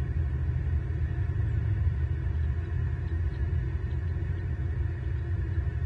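Steady low rumble of outdoor background noise picked up by the nest camera's microphone, wavering in level without a break.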